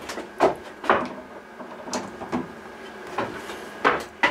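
Footsteps in flip-flops on loose wooden bed slats, with cords being handled: about seven separate knocks and clatters at uneven intervals, the loudest near the start and just before the end.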